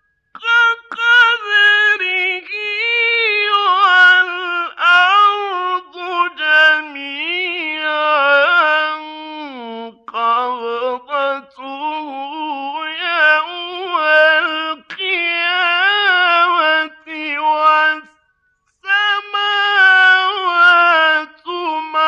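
A male Qur'an reciter chanting in the melodic mujawwad style: long drawn-out phrases sung high in his range, the pitch sliding and turning in ornaments, broken by short breaths and one clear pause a few seconds before the end.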